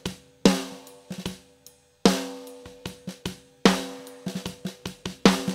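Playback of a live drum kit recording. A snare hits about every 1.6 s with a ringing tail, and lighter kick and hi-hat hits fall between. This is the live snare without the added clap sample.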